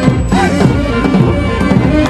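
Street brass band playing loudly: horns over a driving drum beat.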